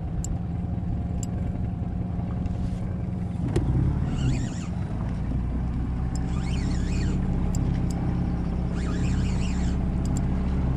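Boat motor running with a steady low hum, getting louder about three and a half seconds in. Brief high squeaking sounds come three times over it.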